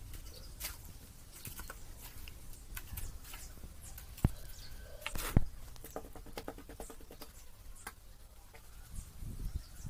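A trowel scooping and slapping wet cement mortar from a plastic basin into a plastic pot mould, giving scattered scrapes and clicks. Two sharp knocks come about four and five seconds in, the loudest sounds here.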